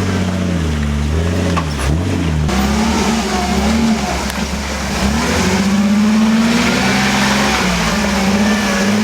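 Lifted off-road Jeep's engine revving, its pitch rising and falling repeatedly as the throttle is worked. A broad rushing noise joins in from about two and a half seconds in.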